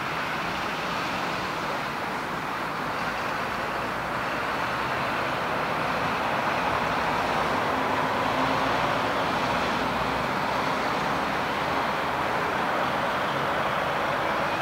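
Jet engines of a four-engine Boeing 747-400 on final approach to land, a steady rushing noise that grows gradually louder as the airliner comes in low over the runway threshold.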